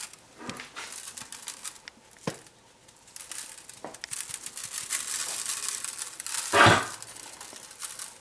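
Spice shaker being shaken over a raw chicken: dry seasoning rattling in the jar and sprinkling out onto the bird and a metal tray, with a few light clicks. One louder brief burst comes about six and a half seconds in.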